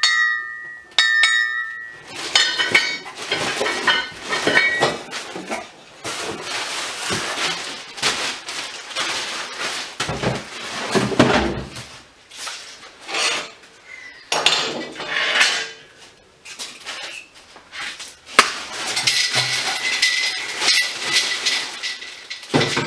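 Steel parts of a hydraulic strut spring compressor clinking and knocking together as they are unpacked and handled, with a ringing clang near the start and plastic wrapping crinkling.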